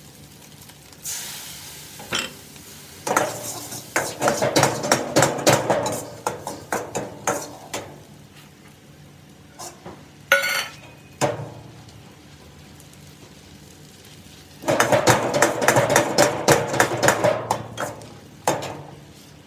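Metal spatula stirring and scraping in a wok, in two long spells of rapid clatter with a single ringing clink between them, over light sizzling.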